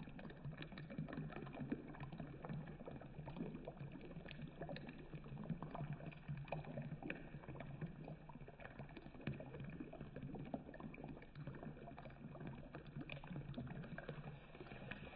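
Water running from a bathtub faucet and falling into the filling tub, a steady pour with many small splashes.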